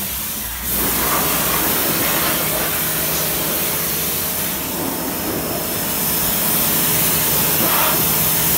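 Pressure washer spraying a jet of water into a car's engine bay: a loud, steady hissing spray with a steady low hum underneath.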